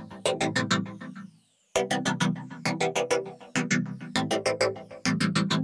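Background music with quick, regularly repeated notes, cutting out briefly about a second and a half in before picking up again.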